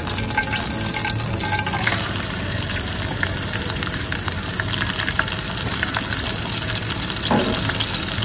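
Pork belly frying in hot oil in an aluminium mess tin: a steady sizzle with many small crackles.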